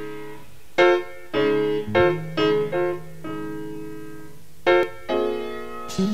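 Background music: keyboard chords struck one after another in an uneven rhythm. Each chord rings and fades, and a few are held for over a second.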